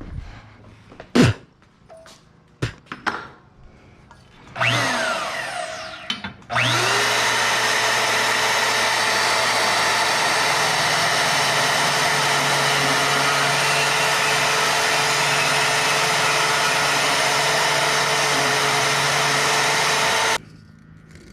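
A few clicks and knocks, then a handheld electric power tool runs briefly and winds down. It starts again about six seconds in and runs loud and steady at an even pitch for about fourteen seconds before cutting off suddenly.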